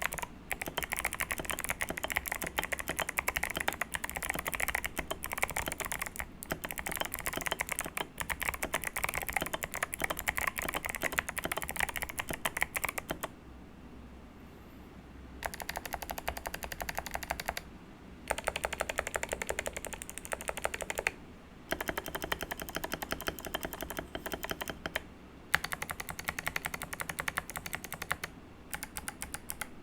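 Keychron V1 mechanical keyboard with clicky Kailh Box White switches, O-ring mounted with tape and foam, being typed on steadily. After a short pause about halfway, the stabilized long keys (spacebar, shift, enter and the like) are pressed rapidly in several runs with brief pauses between them.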